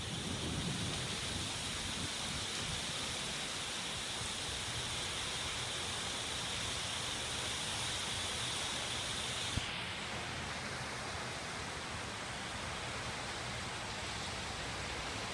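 Rain falling in a steady, even hiss, with a single click about nine and a half seconds in.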